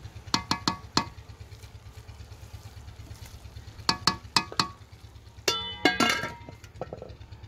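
A wooden spatula knocking a few times against the rim of a large aluminium pot of rice, in two short groups, then the pot's aluminium lid set on with a ringing metallic clatter about five and a half seconds in, closing the pot to steam the pulao on dum.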